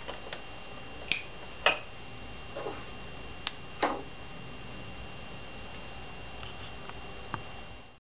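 Steady background hiss with a faint high whine, broken by several sharp clicks, the loudest about a second and a half in; the sound cuts off just before the end.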